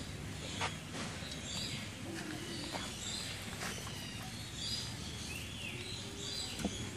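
Outdoor ambience with several birds chirping and calling in the background over a steady low hum, with a few faint clicks or rustles.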